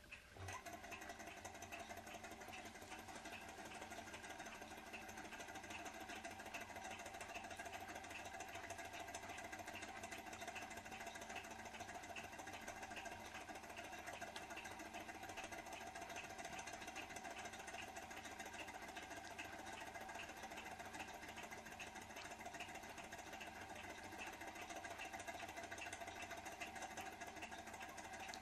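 Small L-9 thermoacoustic model engine running: its single piston and flywheel make a fast, steady, evenly repeating mechanical sound.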